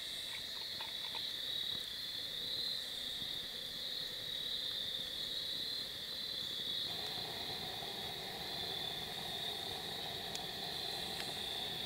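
Steady night chorus of insects in the woods, a continuous high-pitched trill. About seven seconds in, a lower steady drone joins it.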